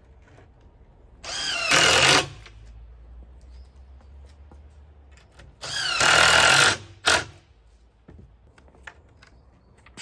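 Cordless drill driving screws through a metal bracket into a wooden frame: two runs of about a second each, each starting with a rising motor whine, followed by a short blip of the trigger.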